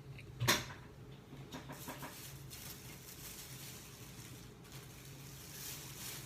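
Handling noise from food packaging: one sharp click about half a second in, then faint rustling and small ticks, over a steady low hum.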